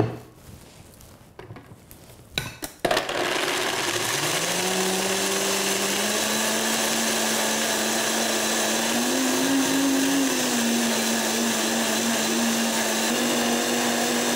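High-speed countertop blender: a click as the jug goes onto the base, then about three seconds in the motor starts and runs loud and steady. Its pitch climbs over the first couple of seconds and then holds, as it purées soaked cashews and water into a thin sauce.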